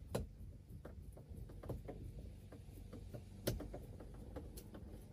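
Scattered small clicks and ticks of a screwdriver and screws being worked by hand while fastening a shift-knob adapter to a truck's gear shift lever, with a sharper click just after the start and another about three and a half seconds in.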